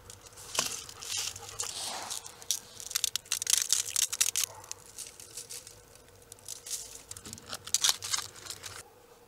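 Aluminium foil tray crinkling and metal kebab skewers clicking as the loaded tray is set down and the skewers are handled, in several bursts, the busiest about three to four seconds in and again near the end.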